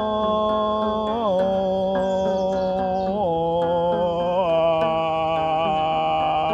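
Slow, chant-like music: long held notes that slide to a new pitch every second or two, with a light tick a little over twice a second.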